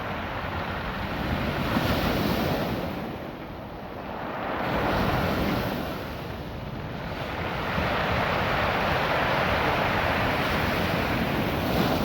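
Ocean surf washing up over and drawing back through a beach of small rounded cobbles. It surges about two seconds in and again about five seconds in, then swells into a longer surge from about eight seconds in.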